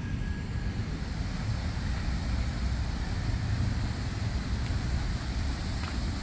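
Steady low rumble of wind on the microphone and city traffic, with a lighter, even hiss above it that fits a fountain's falling water.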